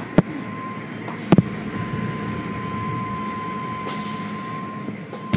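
Automatic car wash tunnel machinery running: a steady whirring rumble with a constant high tone, broken by a few sharp knocks.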